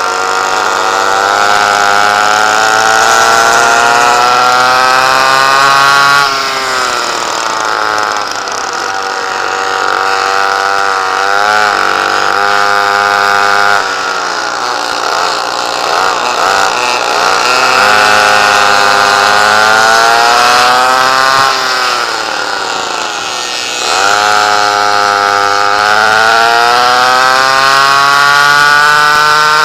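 Vintage rear-engine kart's two-stroke engine at racing speed, heard from the driver's seat: the revs climb steadily for several seconds down each straight, then fall away sharply as the driver lifts for the turns, about four times over.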